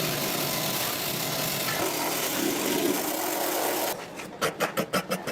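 A power tool running steadily with an even, hissing grind, cutting off about four seconds in, followed by a quick run of about six sharp knocks.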